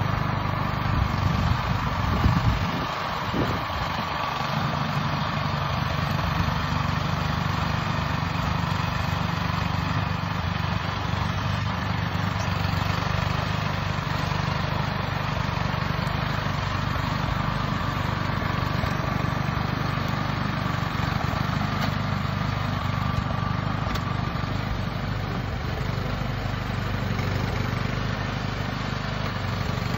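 Gas snowblower engine running steadily while the machine clears snow and throws it from the chute.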